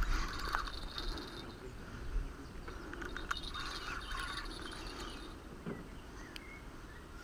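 Riverbank ambience with intermittent chirring wildlife calls, insects or birds, coming in spells of about a second, over a low rumble. A brief thump right at the start is the loudest sound.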